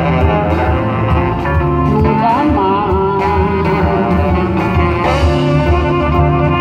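Live band music, the instrumental close of a song: acoustic guitar with the band, and a melody line on top that bends in pitch.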